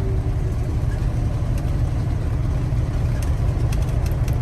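Steady low drone of a semi-truck's diesel engine and road noise, heard from inside the cab while driving, with a few faint ticks near the end.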